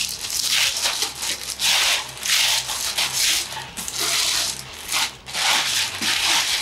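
Thin clear plastic bag crinkling and rustling in irregular bursts as it is pulled off a skateboard deck.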